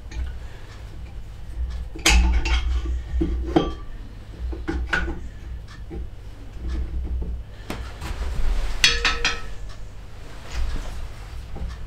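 Scattered sharp metallic clinks and knocks as new 70 mm cylinder barrels are worked down over the pistons and crankcase studs of a Fiat 500 two-cylinder engine. The loudest come about two seconds in and again about nine seconds in, the second with a brief ring.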